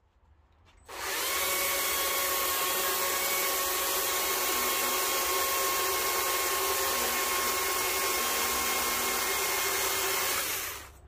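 Stihl MSA 140 C battery chainsaw with a 12-inch carving bar and .043-gauge chain cutting into western red cedar. It starts suddenly about a second in and runs at a steady full speed with an even whine, then winds down just before the end.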